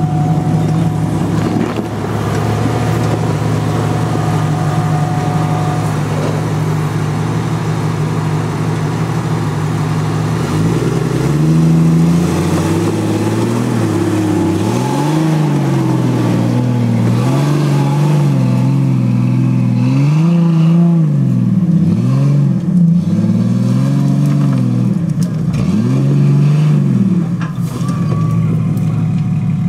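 Jeep Cherokee engine labouring up a steep rocky trail. It runs steadily at first, then from about ten seconds in the revs rise and fall over and over as the throttle is worked, and it settles again near the end.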